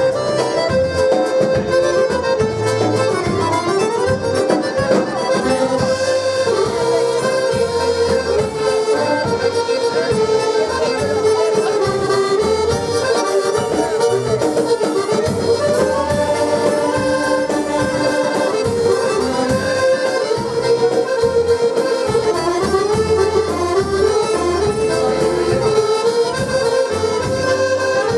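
Two button accordions playing a lively dance tune together. The melody is played over a regular bass beat.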